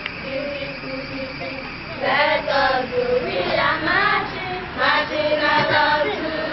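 Young voices singing a song together, stronger from about two seconds in.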